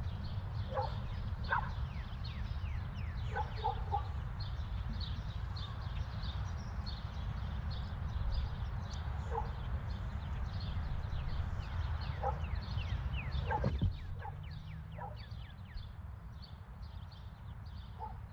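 Outdoor ambience: small birds chirping, many short falling chirps a few each second, over a steady low rumble, with a few brief lower animal calls. A single knock comes about two-thirds of the way through, and after it the background is a little quieter.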